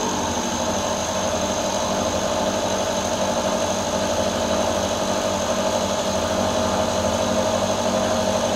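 Knee-type milling machine driving a coated solid carbide end mill through a free-machining steel bar, climb milling a flat in one steady pass. The cut runs easily, with a steady hum and a high whine over the hiss of cutting.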